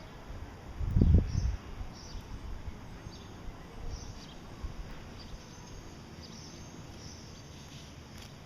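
Small finches, Gouldian finches, calling with short high chirps, repeating every half second or so. A brief low thump about a second in is the loudest sound.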